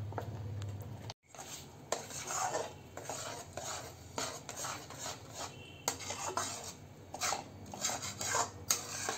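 Slotted metal spatula scraping and clinking against a metal pan as it stirs a thick coconut-and-jaggery filling, in irregular repeated strokes. Before that, a spoon stirs batter in a bowl, and the sound cuts out briefly about a second in.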